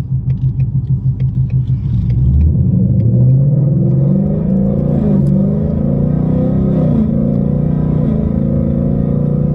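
2019 Ford Mustang's engine accelerating hard. A low, pulsing rumble for the first couple of seconds, then the note climbs in pitch from about three seconds in, with brief dips around five and seven seconds.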